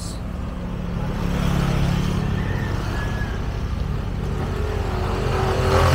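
A motor vehicle engine running close by, growing louder about a second in and loudest near the end.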